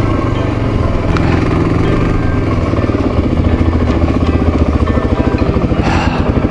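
Dual-sport motorcycle engine running at low speed, heard from the rider's seat. From about halfway through, its note settles into an even pulsing beat as the bike slows toward idle.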